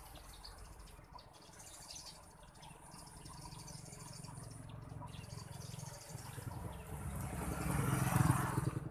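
A road vehicle passing, its low rumble growing louder over several seconds to a peak near the end, with faint insect and bird chirps behind it.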